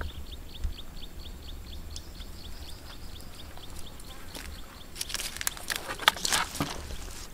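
An animal's rapid high chirping, short falling chirps about five a second, fading out a little past halfway. From about five seconds in, bare feet squelch and rustle through wet mud and grass, the loudest sounds.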